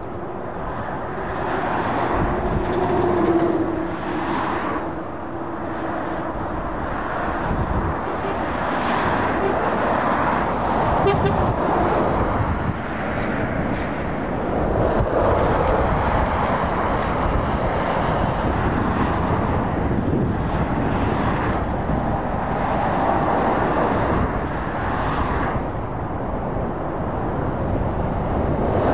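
Motorway traffic: lorries and cars passing one after another, their tyre and engine noise swelling and fading over a steady road hum.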